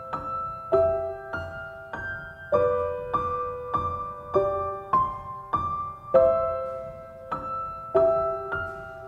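Music: a slow melody on a piano-like keyboard, a new note or chord struck about every 0.6 seconds, each ringing and fading before the next.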